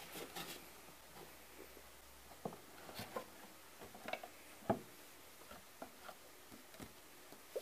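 Faint, irregular light knocks and clicks of handling: about ten small taps spread over several seconds, the sharpest about four and a half seconds in.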